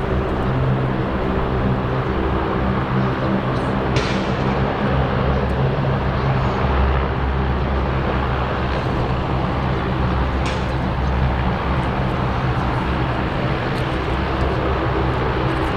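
Jet engine of an F-2 fighter running steadily: a low multi-tone hum under an even rushing noise, with two short clicks about four and ten seconds in.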